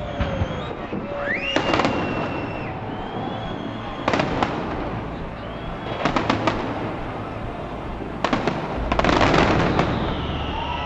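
Aerial firework shells bursting in a display: sharp bangs and crackles come in clusters every couple of seconds, ending in a dense, louder volley of crackling near the end.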